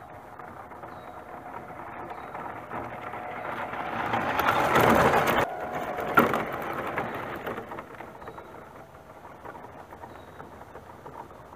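Electric Tamiya CC-01 Volkswagen Amarok RC truck driving over dirt and dry leaves: motor and gear whine with tyre crunch, growing louder as it comes close, loudest as it passes about five seconds in, then fading away. One sharp knock just after it passes.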